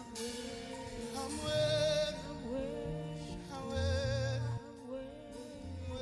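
Slow worship music: held, wavering melodic notes, sung or wordless, over sustained low bass notes.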